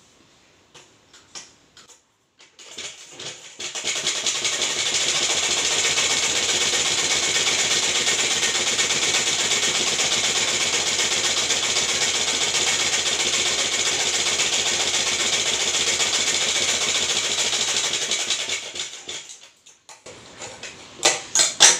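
Sewing machine stitching a seam: it picks up speed over about a second, runs fast and steady for about fourteen seconds, then slows and stops. A few sharp snips of scissors follow near the end.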